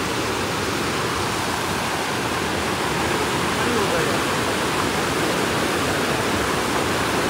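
Steady rush of a fast-flowing, monsoon-swollen stream running over rocks, a continuous even noise with no break. The flow is strong, the current heavy enough to make crossing risky.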